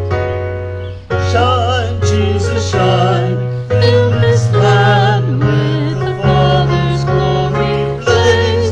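Church hymn: an electric keyboard plays sustained chords, and a singer comes in about a second in, singing with vibrato.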